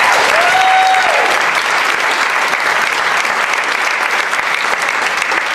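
Audience applauding steadily and loudly, with one short cheer from a voice about half a second in.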